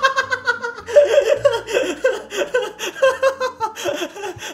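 A man laughing hard in long runs of rapid ha-ha pulses, with a short break about a second in.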